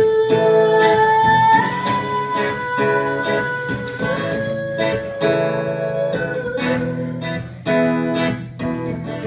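Acoustic guitar strumming a slow bluesy accompaniment, about two strums a second, with a long held note over it in the first couple of seconds.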